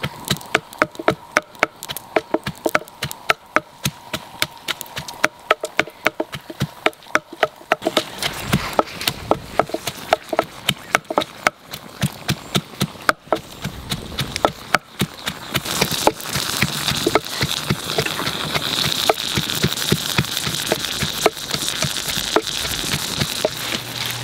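Open wood fire crackling under squid cooking on a flat hot stone, with many sharp irregular pops and crackles. A sizzling hiss builds through the second half as the juices on the stone heat up.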